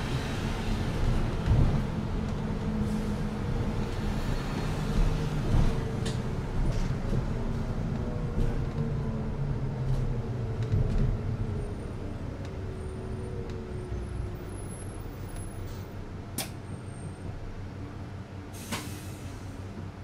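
Interior of a Keihan city bus standing at a stop: the engine idles with a steady low hum, with slowly falling tones in the middle and the hum easing a little about two-thirds through. A sharp click comes about three-quarters through, and a short burst of air hiss from the bus's air system comes near the end.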